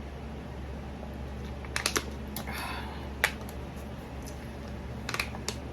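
A person eating close to the microphone: a scatter of sharp mouth and chewing clicks and a short crunchy rustle, over a steady low hum.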